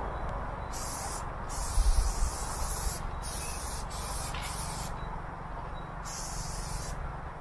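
Aerosol spray-paint can hissing in several short bursts broken by brief pauses, as paint is sprayed onto the wagon side.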